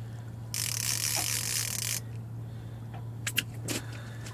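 Fishing reel drag buzzing for about a second and a half as a hooked striped bass runs and pulls line off the spool, then a couple of short clicks near the end.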